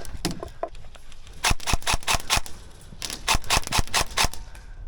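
Airsoft gun firing sharp clicking shots in quick strings, about four a second: a string of about five shots, a short pause, then six or seven more.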